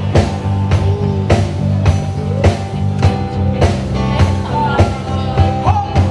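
Live band playing rock-style music: a drum kit keeping a steady beat of about two hits a second under bass and a gliding lead line.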